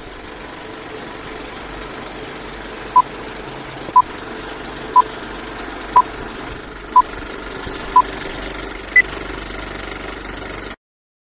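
Film-leader countdown sound: a steady clattering film-projector noise with a short beep once a second, six beeps at one pitch and then a final beep at a higher pitch. The sound cuts off suddenly near the end.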